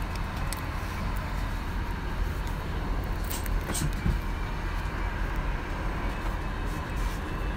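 Steady airliner cabin noise: a low rumble with air hiss, with a few faint clicks about halfway through.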